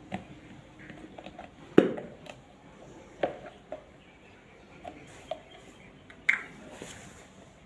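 A few separate sharp clicks and knocks of objects being handled on a hard surface. The loudest comes just under two seconds in, with others at about three and about six seconds.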